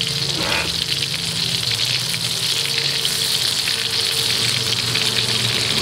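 Fish-paste rolls frying in hot oil in a metal wok: a steady sizzle with fine crackling.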